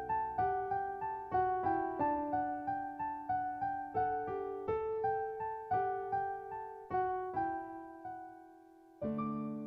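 Background piano music: a melody of struck notes, about three a second, that fades out, then a new chord is struck near the end.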